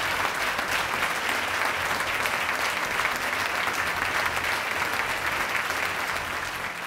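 Audience applauding, a steady patter of many hands clapping that eases off near the end.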